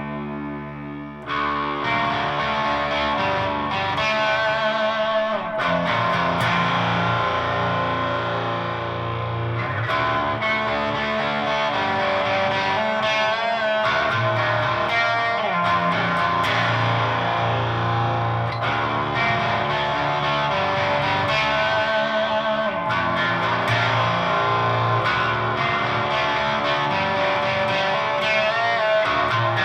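Electric guitar through a Siren Pedals Eligos HM-2-style heavy metal distortion pedal, with its highs and lows both set just past 3 o'clock, into an all-tube Randall Diavlo amp and 4x12 cabinet, giving the buzzing Swedish death-metal "chainsaw" tone. A held chord dies away, then about a second in a fast, heavily distorted riff of low chugs and chords starts and runs on.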